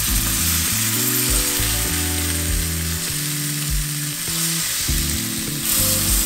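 Beef short ribs searing in hot olive oil in a stainless steel roasting pan on high heat, a steady sizzle as the meat browns.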